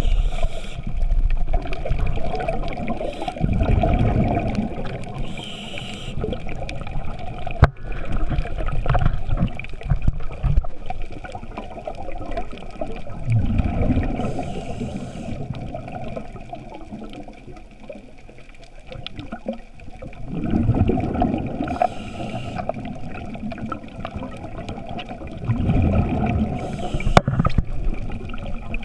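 Scuba regulator breathing heard underwater: bursts of exhaled bubbles rumbling out every several seconds, with short hissing inhalations between them.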